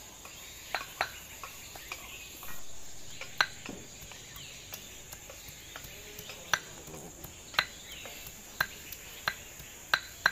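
Knife blade chopping garlic cloves on a chopping board: sharp, irregular knocks about one or two a second. A steady high-pitched insect drone, like crickets, runs underneath.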